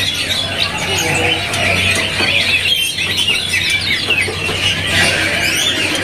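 Many caged songbirds chirping and trilling at once in a dense, overlapping chorus, over a low steady hum.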